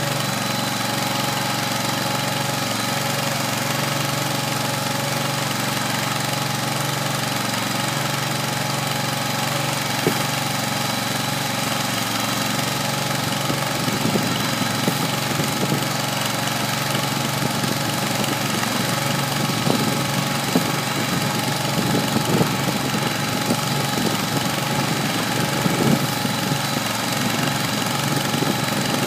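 Kohler 25 hp gas engine running steadily, driving a small feed mixer that is turning a load of hay. From about halfway through, irregular knocks from the mixer come in over the engine.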